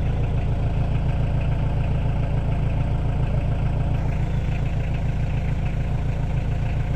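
Mitsubishi 4M40 four-cylinder diesel engine idling steadily, heard close to the exhaust tailpipe. The freshly overhauled engine runs smoothly and evenly.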